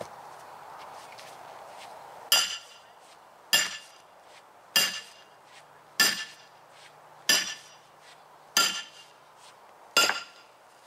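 Sledgehammer striking steel wedges driven into a saw cut in a tree stump: seven ringing metal-on-metal blows about 1.3 s apart, starting about two seconds in.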